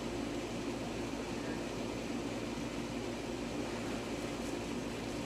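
Steady machine-like hum with a hiss over it, unchanging throughout.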